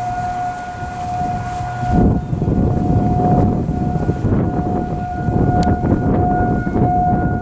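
Federal Signal 2001-SRN electronic outdoor warning sirens sounding a steady alert tone at one pitch, weaker for about a second in the middle. A loud, low rushing noise sets in about two seconds in and runs under the tone.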